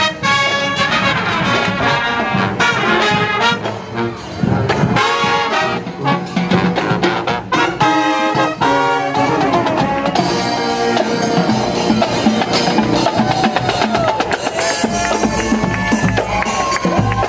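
Brass-led music, trumpets and trombones playing short, punchy notes that give way to fuller, held notes about halfway through.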